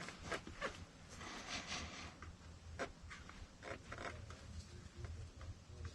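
Faint, scattered clicks and light scrapes of hand work on engine-bay parts, over a low steady hum.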